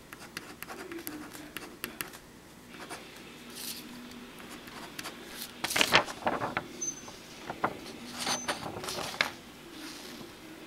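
A pen scratching on paper as block letters are written, in short strokes. About six seconds in there is a louder rustle and knock as the paper and camera are handled.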